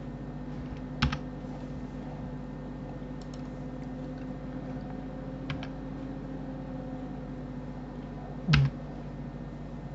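Computer keyboard and mouse clicks: three sharp clicks a few seconds apart, the last one near the end the loudest, over a steady low hum.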